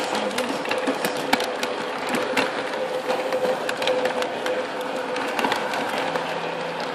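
Lionel O gauge model train running on its track, heard close up from one of its cars: a steady motor hum with a whir, and wheels clicking irregularly over the rail joints.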